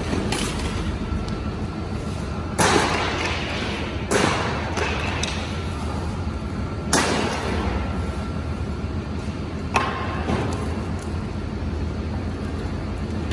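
Steady low running of the truck and the dump trailer's hydraulics, with several loud bangs and crashes of heavy debris echoing off the walls of a large metal building, about five of them spread over the span.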